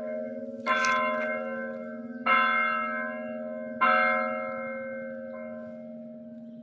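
Catholic church bells ringing: three strikes about a second and a half apart, each ringing out and fading, over a steady low hum of the bells that carries on after the last strike.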